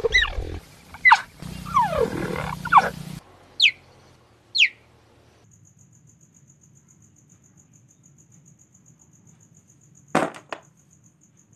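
Cheetah calling for about five seconds: a run of short, high calls that fall sharply in pitch, the first few over a noisy hiss, the last two alone. About ten seconds in, a brief clack as a plastic toy figure is set into a plastic basket.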